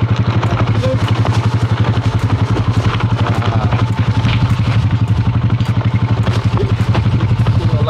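An engine idling steadily close by: a low, even hum with a fast regular throb that does not change.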